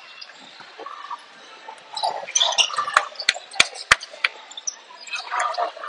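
Basketball game sounds: sneakers squeaking sharply on the court floor, and a basketball dribbled four times in quick succession, about three bounces a second, around three seconds in.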